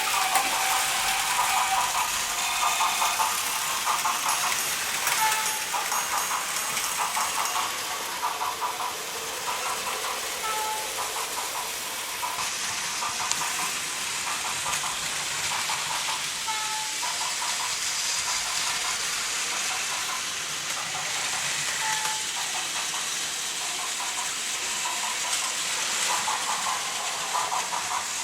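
Plarail battery-powered toy trains running on plastic track: a steady motor whir and hiss with a fine rattling from the wheels on the track. A short tone sounds about every five seconds.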